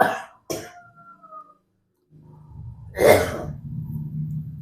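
A person coughing: two short coughs at the start, then a harder cough about three seconds in that trails off into a low drawn-out voiced sound.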